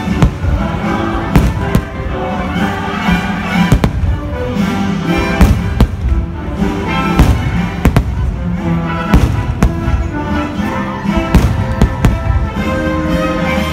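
Aerial fireworks bursting, with a sharp bang every second or so, over loud show music playing throughout.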